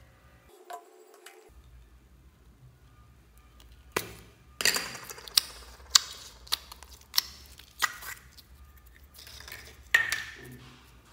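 Clear yellow slime squeezed in the fingers and pressed into a tub of other slimes, making a quick series of sharp, sticky pops and squelches from a third of the way in, with one more loud pop near the end.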